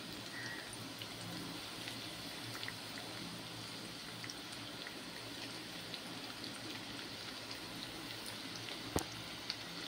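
Oil sizzling in a kadai as onion, green chillies and curry leaves fry, with small scattered crackles. A single sharp click about nine seconds in.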